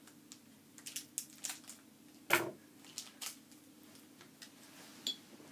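Scissors snipping open a small plastic bag: a run of light clicks and snips over the first three seconds, with one louder knock a little over two seconds in and a last click near the end.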